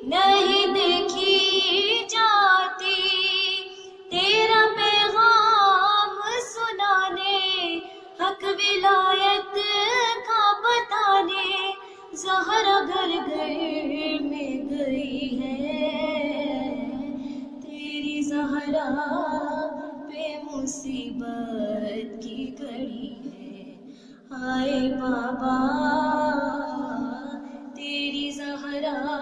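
A woman's solo voice singing an Urdu noha (mourning lament) unaccompanied, in long ornamented phrases with short breaks between them. About halfway through, the melody moves down to a lower register.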